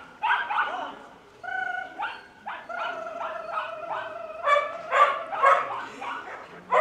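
A dog barking in a rapid string of short, high-pitched barks, about two or three a second, getting louder from about four and a half seconds in.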